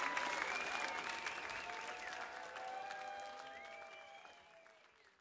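Live concert audience applauding and cheering, with a few held calls over the clapping, fading out toward the end.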